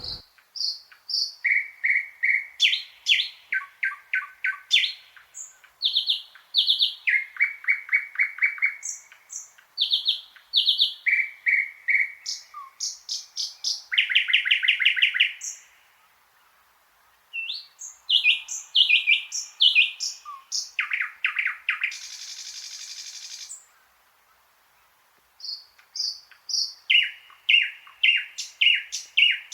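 Thrush nightingale singing: loud phrases of rapidly repeated notes, with one harsh, buzzy rattle later on and two short pauses between phrases.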